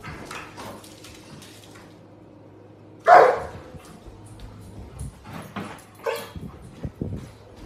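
A puppy barking: one loud bark about three seconds in and a quieter one about six seconds in, with softer short sounds between.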